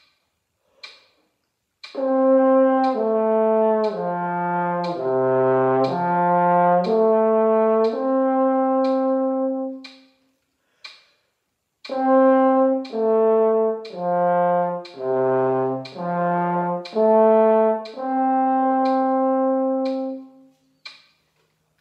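French horn played on the F side in a slow warm-up exercise from written G: the notes step down about an octave and back up, slurred the first time and tongued staccato the second. A metronome clicks once a second throughout.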